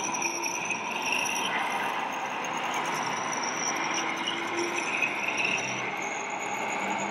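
Steady mechanical running of radio-controlled model vehicles working a dirt arena, with faint thin whines, over the even background noise of a busy exhibition hall.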